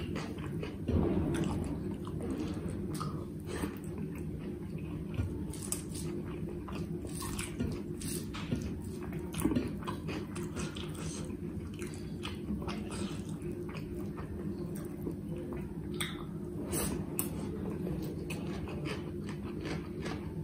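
Eating by hand: chewing and mouth sounds, with fingers mixing rice on a plate making scattered soft clicks and squelches. A steady low hum sits underneath.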